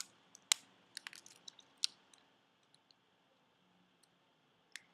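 Small screwdriver prying the rubber pads off the underside of a Swift Point mouse: scattered light clicks and ticks, busiest in the first two seconds, then mostly quiet with a single click near the end.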